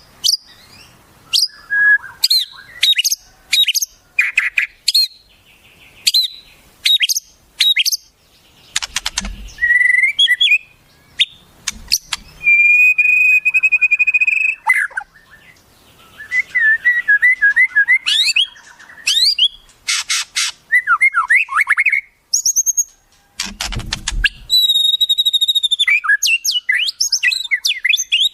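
Songbird masteran recording for training white-rumped shamas: a varied run of quick chirps and slurred whistles, broken by harsh rasping calls about a third of the way in and again near the end. There is a long held whistle in the middle and a fast stuttering series of notes.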